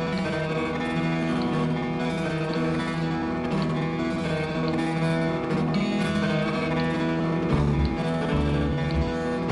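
Background guitar music, plucked and strummed notes.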